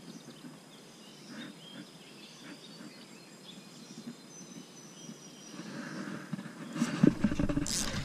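Quiet riverside ambience with a few faint bird calls. Near the end, rustling and a couple of sharp knocks as a hand grabs the fishing rod and reel close to the microphone.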